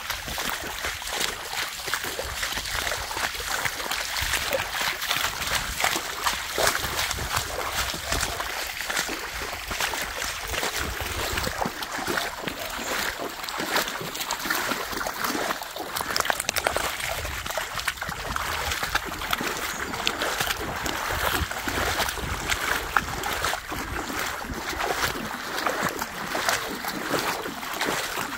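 Steady splashing of feet and a dog's paws wading through shallow floodwater over a road, with a steady rush of moving water behind it.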